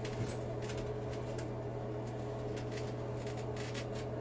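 Steady low hum with a few faint, light clicks and taps as a porcelain wall-hung sink is settled onto its wall bracket.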